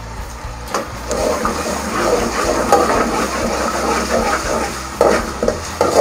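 Onion and ginger-garlic paste frying in hot oil, sizzling as a slotted metal spoon stirs them and scrapes the pan. The sizzle grows louder about a second in.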